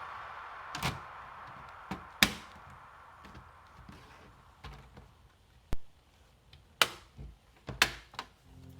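About ten irregular sharp clicks and knocks from hands working on a laptop's plastic case and small parts during disassembly, over a faint hiss that fades away in the first few seconds.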